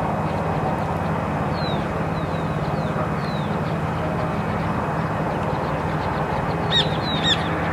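Steady outdoor background rumble with a low hum, with a few faint, short descending bird chirps. About a second before the end come two sharper bird calls, the loudest sounds.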